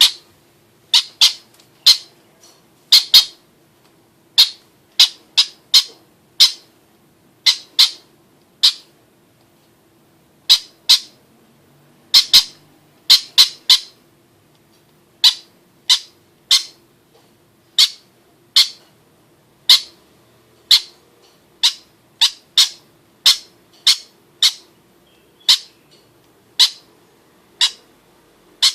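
Young bird giving short, sharp, high-pitched calls over and over, about one or two a second with a few short pauses, typical of a hungry chick begging to be fed. A faint steady hum lies underneath.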